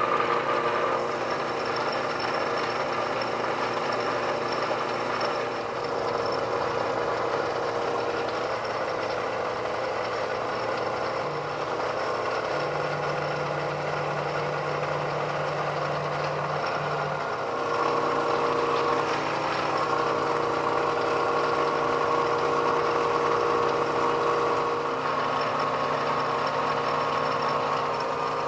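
Milling machine running while drilling holes, a steady machine hum whose tone shifts a couple of times partway through.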